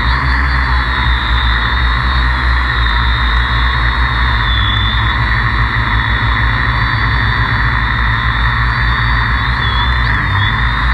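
Electric motors and propellers of a Tarot hexacopter whining steadily, heard from a camera mounted on the frame, over a heavy low rumble. The motor whine dips briefly in pitch about four seconds in and again near the end.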